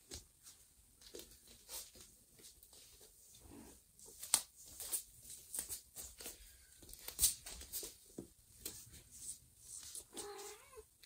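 Cat's paws and claws tapping and clicking on a laminate floor as she walks carrying a kitten, with one short meow near the end.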